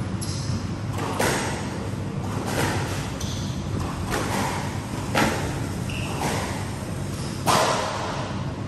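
Squash rally: the ball is struck hard by rackets and smacks off the walls, a sharp hit about every one to two seconds, with the loudest strike near the end. Brief high squeaks come between the hits, and a steady hall hum sits under it all.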